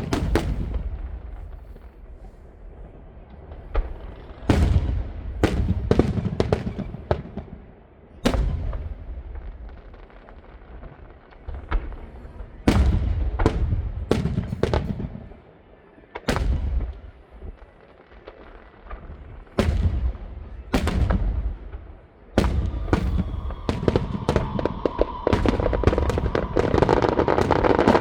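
Aerial fireworks shells bursting: a run of sharp bangs with low booming tails, irregularly spaced, building into dense rapid crackling near the end.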